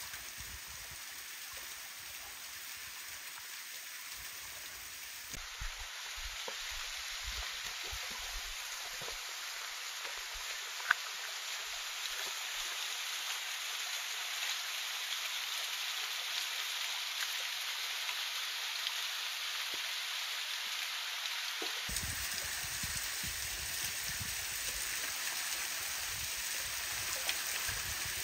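Steady splashing rush of a thin waterfall falling into a shallow rocky pool, slowly getting louder, with one brief sharp click about eleven seconds in.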